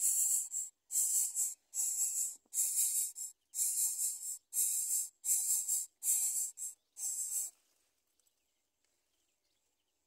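Nestling songbirds begging: a run of short, high, hissy calls repeated a little more than once a second, stopping about seven and a half seconds in.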